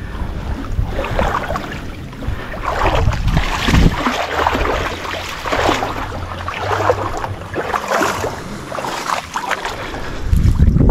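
Shallow marsh water sloshing and splashing, with irregular rustling and crackling of thick vegetation, as people wade and push through a flooded thicket.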